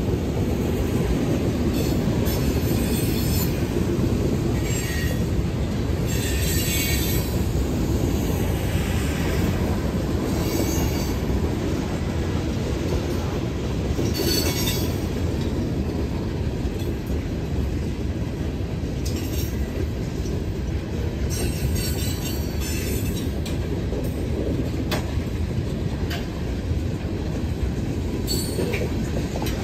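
Freight train of hopper cars rolling through a grade crossing: a steady rumble of wheels on rail, with high screeches from the wheels coming and going.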